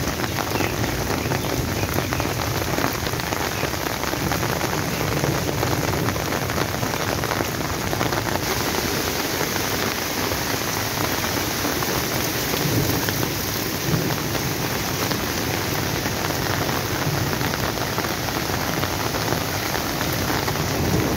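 Heavy rain falling steadily on wet ground and standing water.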